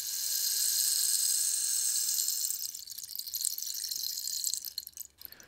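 A high hissing rush that sounds like running water, loudest in the first half. It fades away about five seconds in.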